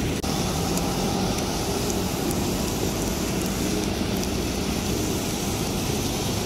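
Steady city street traffic noise, cars running along a multi-lane road with no distinct single event.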